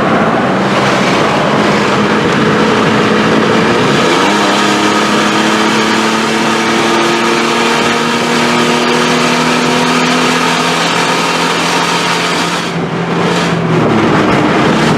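2009 Nissan Frontier pickup's engine running under load at highway speed, heard inside the cab over road and wind noise. Its note drops about four seconds in, as at a gear change, then rises slowly in pitch as the truck gains speed. The sound dips and changes near the end.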